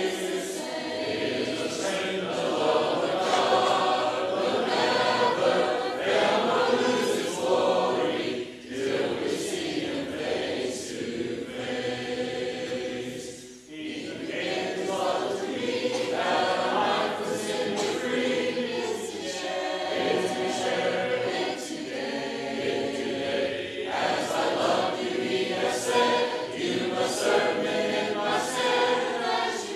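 A church congregation singing a hymn a cappella in four-part harmony, with many voices together and no instruments. There is a short break between phrases about halfway through, as the refrain gives way to the next verse.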